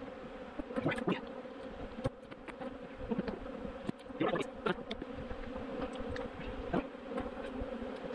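Many honeybees buzzing in a steady hum around an open hive, with single bees sweeping loudly past close by several times, typical of a robbing frenzy. A few light knocks are heard.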